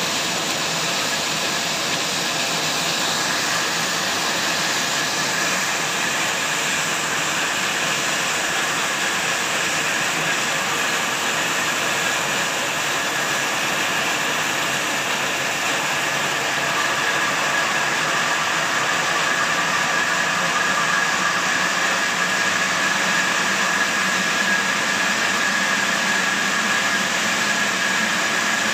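Band sawmill running with its blade sawing a squared log: a steady mechanical noise with a high whine that gets slightly louder about two-thirds of the way through.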